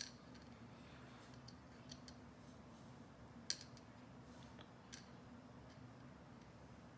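A few faint, sharp clicks of small metal lock parts being handled while a lock is taken apart, the loudest about three and a half seconds in, over a low steady hum.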